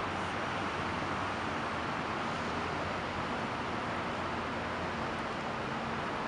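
Steady wind, an even rushing noise with no distinct events.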